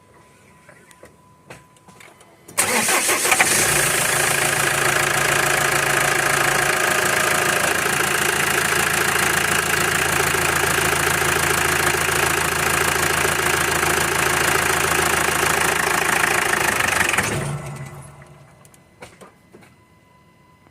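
A motor-driven machine running steadily, with a loud hiss over a low hum. It starts abruptly a couple of seconds in and winds down shortly before the end.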